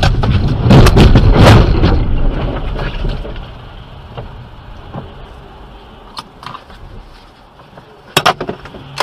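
Car driving on a wet road in rain, heard from inside: a loud rumble with several sharp knocks and clatter in the first two seconds, dying down to quieter road noise, then a few sharp clicks near the end.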